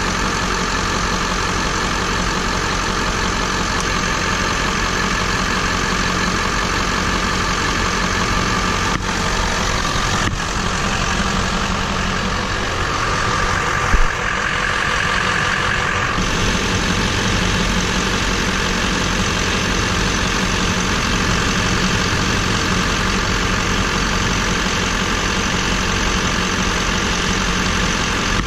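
2004 GMC Sierra 3500 pickup engine idling steadily. Between about nine and sixteen seconds in, the low rumble eases and a hiss rises over it, with one sharp click about fourteen seconds in.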